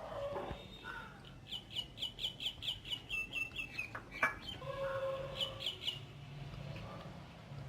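A bird calling: a quick run of short, falling chirps, about five a second, starting a second and a half in, then a few more near six seconds, over a low steady hum. A single sharp click comes about four seconds in.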